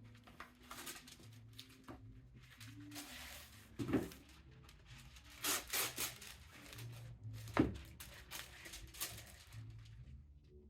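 Wax paper being handled: rustling and tearing in short rasps, with a couple of sharp knocks on the work table.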